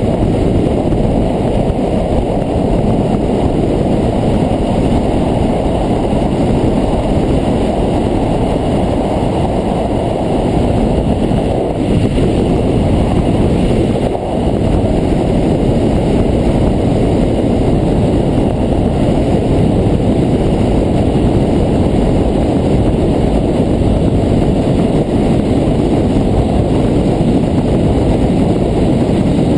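Touring motorcycle cruising at road speed: a steady rumble of wind buffeting the microphone mixed with engine and tyre noise, dipping briefly about halfway through.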